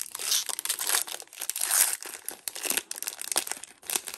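Foil wrapper of a Pokémon booster pack being torn open by hand and crinkled, a dense crackling with many small snaps, loudest about two seconds in.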